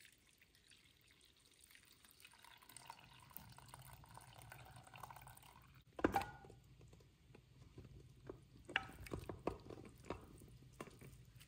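Beef bone broth pouring faintly from a stainless steel pot through a nut bag into a glass measuring cup, then a sharp knock about six seconds in. After that come scattered light knocks and thuds as the cooked bones and meat slide out of the pot into the bag.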